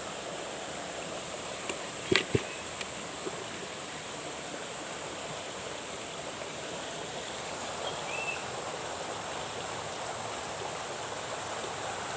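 Steady rush of running water, like a small stream or inflow, with a brief cluster of sharp clicks and knocks about two seconds in and a faint steady high whine.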